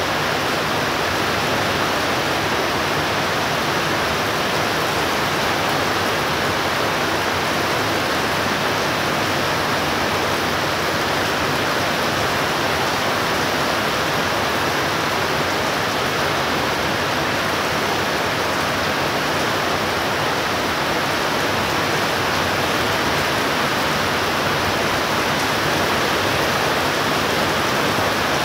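Heavy rain pouring steadily in an intense thunderstorm downpour, with no thunder and no change in strength.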